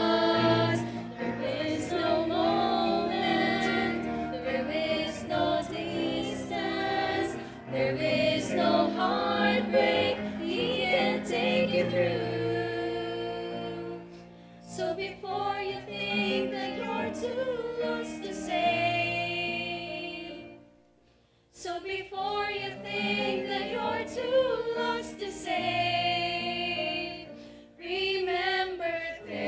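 Four women singing a hymn together in harmony, with a short break in the singing about two-thirds of the way through.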